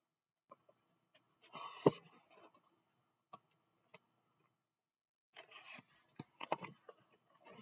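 Pages of a picture book being turned and handled: a papery swish with a sharp snap about two seconds in, then a cluster of rustles and light knocks in the last couple of seconds.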